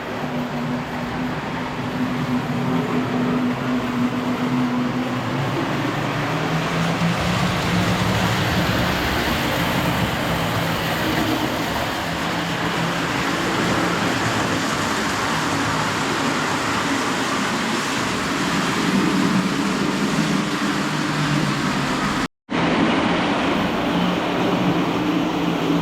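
Lionel prewar standard gauge electric train running on the track: a steady hum of its motors with the rumble of wheels on rail. The sound cuts out for an instant near the end.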